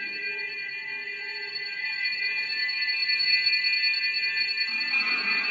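Synthesizer app on a tablet holding a sustained chord of several steady, high tones. It grows a little louder and brighter near the end.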